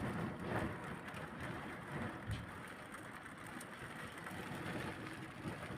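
Storm wind and heavy rain: a steady rush that swells and eases unevenly, heaviest in the low rumble.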